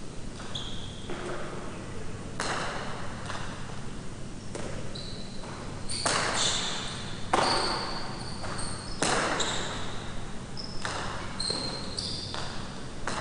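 Jai alai rally: the hard rubber-cored pelota cracks sharply off the fronton walls and the players' wicker cestas, a loud impact every second or two that rings and echoes in the big court, with short high squeaks of players' shoes on the court floor between the hits.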